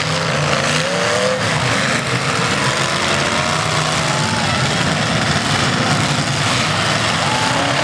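Engines of several demolition derby cars running and revving together, their pitch rising and falling as they rev.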